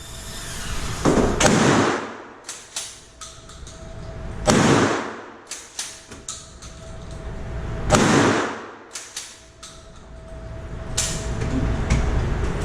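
Three blasts from a 12-gauge shotgun, about three seconds apart, each ringing out in a reverberant indoor range, with smaller sharp cracks in between.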